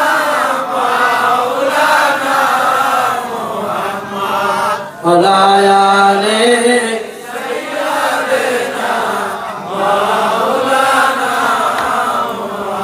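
Devotional chanting: a voice sings in long, wavering melodic lines. About five seconds in it holds one steady note for about two seconds.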